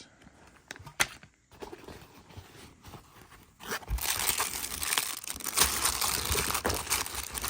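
Packaging crinkling and tearing as accessory packets are pulled out and opened, a dense crackle from about four seconds in, after a single click about a second in.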